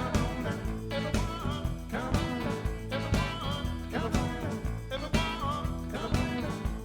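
Band music with a steady beat, a strong stroke about once a second, and a wavering lead melody line: an instrumental stretch of a sung worship song.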